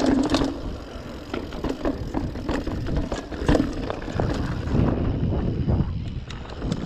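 Mountain bike ridden over a loose, stony dirt trail: tyres crunching on gravel and rocks, with many irregular sharp clicks and knocks as the bike rattles over the bumps, over a steady low rumble of wind on the microphone.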